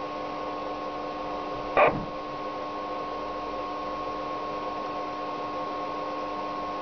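VHF FM transceiver tuned to the ISS downlink on 145.800 MHz, putting out steady hiss with a low steady hum through its speaker while no voice comes down. There is one brief burst of noise about two seconds in.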